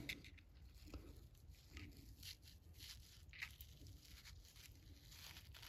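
Near silence with a few faint, scattered scrapes and ticks: a small screwdriver picking metal drill shavings and a wad of paper towel out of a freshly drilled hole in a 4L80e transmission pump body.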